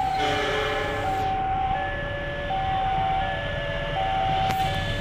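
Railway level crossing's electronic warning alarm sounding a two-tone signal, high and low tones alternating about every three-quarters of a second, over the low rumble of an approaching train. A sharp click comes near the end.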